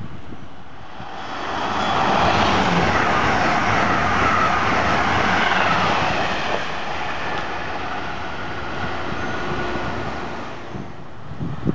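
Amtrak Acela Express high-speed electric train passing at speed: a rush of wheel and air noise that swells about a second in, stays loud for several seconds as the train goes by, then slowly fades near the end.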